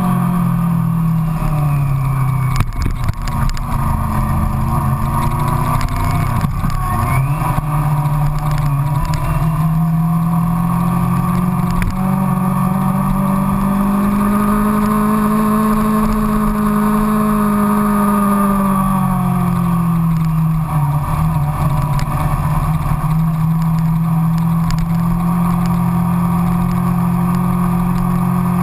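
Yamaha FZX250 Zeal's 250 cc inline-four engine running while riding. Its pitch dips early on, rises through the middle and falls again about two-thirds of the way in before holding steady, over steady wind and road noise, with a few brief knocks early on.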